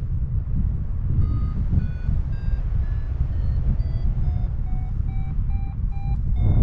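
A run of short electronic beeps over steady wind rumble. The beeps start about a second in, step upward in pitch and come faster, from under two a second to over two a second.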